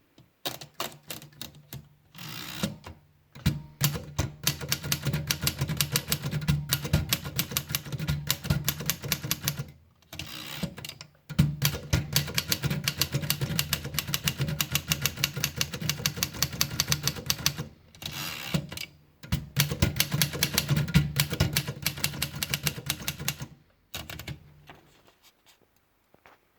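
Royal Junior manual portable typewriter being typed on: rapid runs of key strikes in several long stretches broken by short pauses, thinning to a few scattered clicks near the end.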